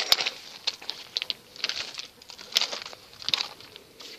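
Footsteps crunching irregularly on loose gravel, with some rustling from the phone being handled.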